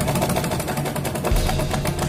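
Larex sewing machine running with a fast, even mechanical clatter. It has started making this noise and runs slightly jammed, which the tailor puts down to lint and dirt caught between the shuttle race (nal) and its guard plate under the bed.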